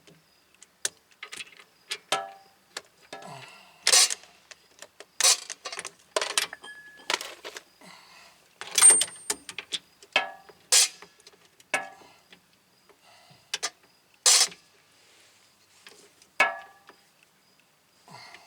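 Metal hand tools clinking and knocking, a wrench and socket being handled and set against the brake parts: a dozen or so sharp, irregular clanks, some ringing briefly.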